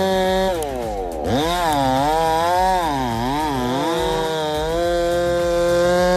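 Husqvarna 390 XP two-stroke chainsaw with a long bar running at full throttle. Its pitch drops and wavers as the chain bogs under load in the cut, then climbs back to a steady high rev near the end.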